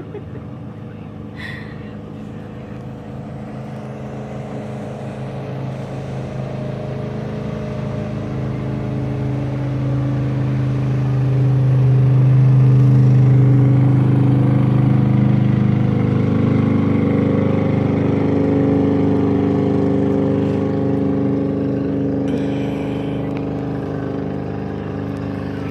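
Motorboat engine passing by: a steady engine hum that grows louder over about twelve seconds, peaks, then slowly fades.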